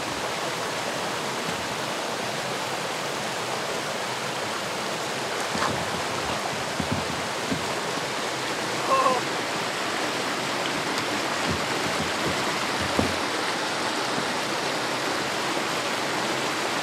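Steady rush of stream water running through a shallow, rocky outlet, with a few soft knocks of a plastic kayak hull as it is boarded and pushed off.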